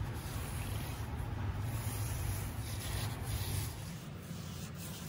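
Paintbrush bristles scrubbing over a cast-iron brake drum, spreading a thick rust converter, over a steady low hum.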